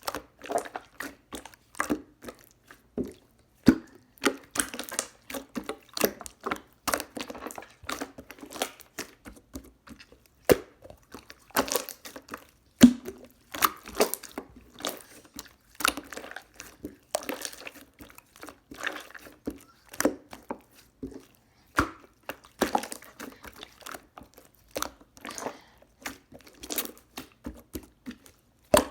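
Irregular close-up crunching and crackling, several short crisp sounds a second.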